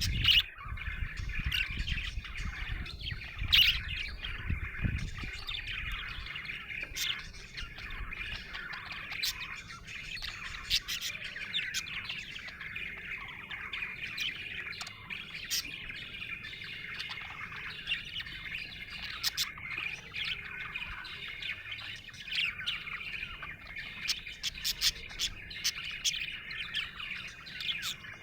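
Budgerigars chirping and warbling continuously, a busy chatter of quick twittering notes with frequent short sharp chirps.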